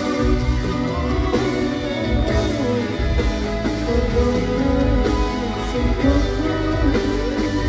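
Dangdut koplo band music, with guitar and a melody line that slides in pitch over a full, steady low end.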